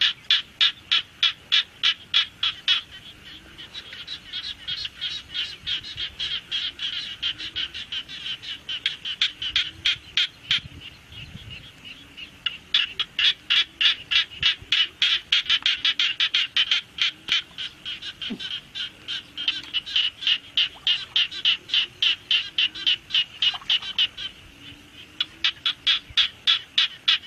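Frogs calling: long trains of rapid, high-pitched pulses, about four or five a second, breaking off for a second or two now and then.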